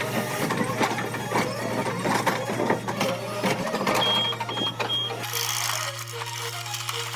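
Excavator tearing out a tree stump: dense cracking and knocking of wood and roots over the machine's steady low hum, with three short high beeps about four seconds in. The sound changes about five seconds in to a repeating mid-pitched pulse.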